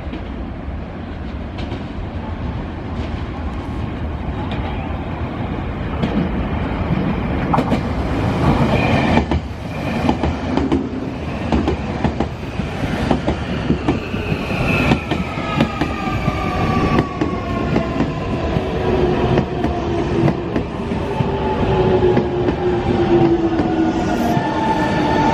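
Nankai electric train running on the rails, its wheels clacking over rail joints, growing louder. From about halfway through, its motor whine falls slowly in pitch as the train slows.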